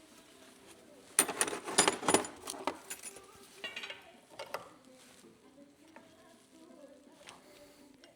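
Metal parts clinking and rattling in a quick cluster about a second in, then a few single clicks, over quiet background music.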